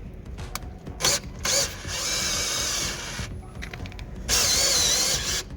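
Electric drill driving a car jack to lower the car: two short blips of the trigger, then a run of about a second, then a louder run of about a second whose motor pitch dips briefly and recovers.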